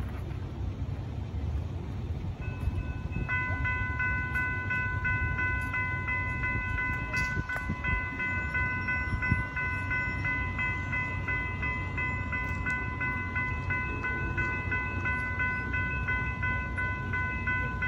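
Railroad grade-crossing warning bell starting up about three seconds in and ringing on steadily over a low rumble: the crossing has been activated by an approaching train.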